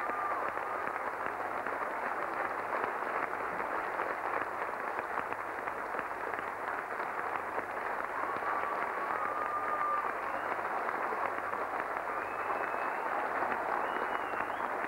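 Audience applauding steadily, with a few whistles heard over the clapping.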